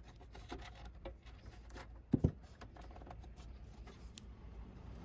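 Long-nose pliers and a crimped wire connector being handled at the charger's transformer: scattered faint clicks, with two quick knocks about two seconds in.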